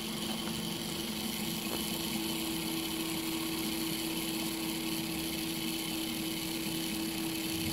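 Märklin 3090 model locomotive's electric motor running at a steady speed with its wheels turning, giving an even whirring hum.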